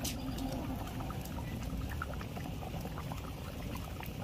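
Eel curry boiling in a blackened iron wok over a wood fire, bubbling steadily with many small pops and spits.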